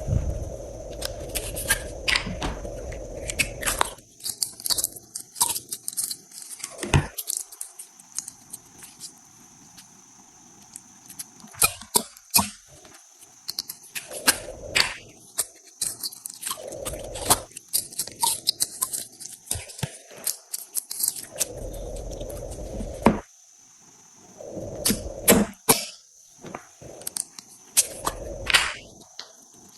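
Slime being squished and worked, giving irregular crackling clicks and pops, with stretches of softer squelching and rubbing between them.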